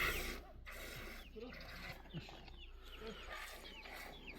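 Faint animal calls: a string of short, falling chirps, about two a second, with a few lower calls beneath them.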